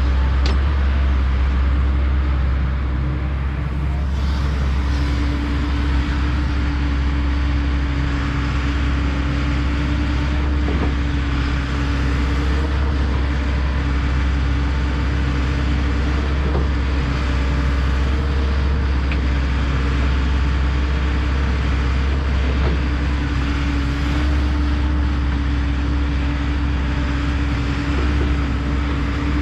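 Kobelco SK210 hydraulic excavator's diesel engine running steadily under work, with a low drone. A steady whine strengthens for several seconds at a time as the machine works.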